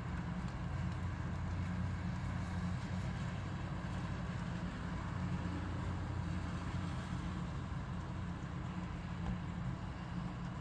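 Steady rain and wind noise, dominated by a constant low rumble with an even hiss above it.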